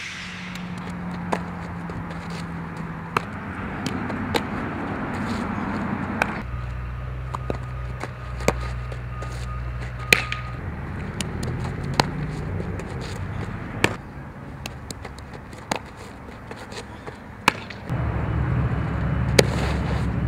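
Sharp pops of a softball coming off a bat and smacking into leather gloves, about a dozen spread irregularly, over a steady low outdoor hum.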